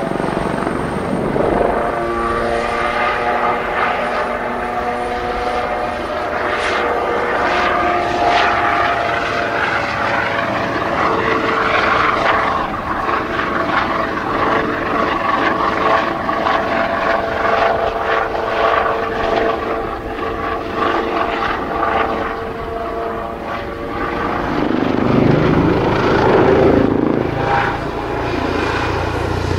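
Kawasaki OH-1 light helicopter flying past low overhead. Its twin turboshaft engines whine over the rotor noise, with several tones that shift in pitch as it manoeuvres. A lower swell of noise rises near the end.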